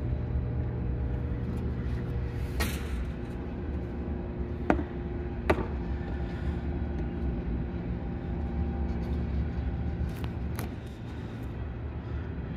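Steady low rumble of an idling engine, with two sharp clicks about a second apart near the middle.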